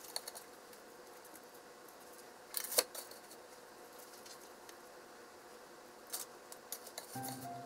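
Chopsticks clicking and tapping a few times while pieces of breaded pork cutlet are laid on rice in a bento box, the loudest cluster of clicks about two and a half seconds in.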